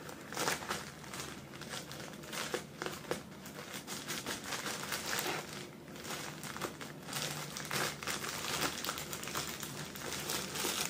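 Plastic courier pouch crinkling and rustling in short, irregular crackles as it is cut open with scissors and handled.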